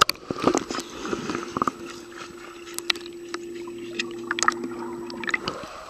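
A splash in the pool water, followed by the muffled sound heard with the camera under water: scattered bubbly clicks, and a steady hum from about a second in until near the end.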